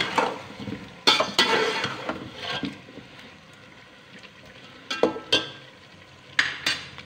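Slotted metal spatula scraping and clinking against a steel pot as chicken pieces and potato chunks are stirred and fried, in several separate strokes over a steady sizzle.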